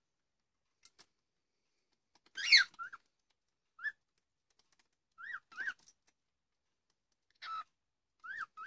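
Cockatiels calling: one loud, wavering whistle-like call, then a string of short rising-and-falling chirps, several in pairs.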